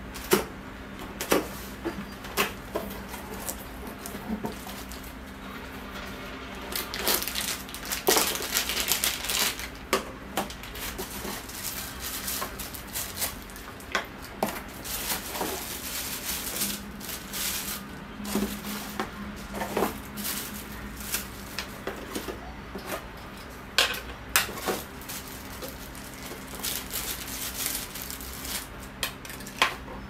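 Handling noises from unboxing a cordless stick vacuum: cardboard packaging and plastic wrapping rustling, with many short knocks and clicks as plastic vacuum parts are set down on a tabletop. A faint steady hum runs underneath.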